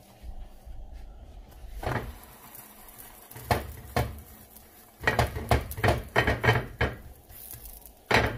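Knocks and clinks of kitchenware around a cast-iron pan as a round of dough is laid in and pressed: a few single knocks, then a quick run of about eight knocks past the middle, and a sharp one at the end.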